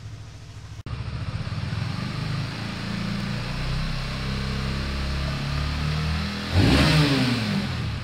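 Honda CBR150R single-cylinder four-stroke engine through its stock exhaust, running steadily at low revs, then revved sharply about six and a half seconds in, the pitch rising and falling back.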